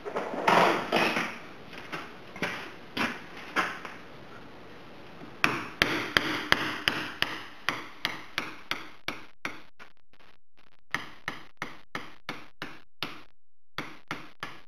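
Hammer blows on a tool set against the lip of the old pinion seal on a Jeep Liberty's rear differential, driving the seal out. There are a few scattered metallic knocks, then from about five seconds in a steady run of sharp taps, about three a second.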